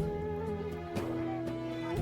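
Background music: a slow melody held over sustained chords, with light beats.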